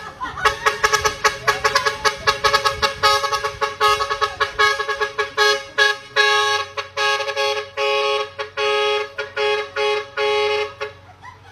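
Vehicle horn honked in a fast rhythmic run of short toots that plays a tune, changing to longer held notes about halfway through.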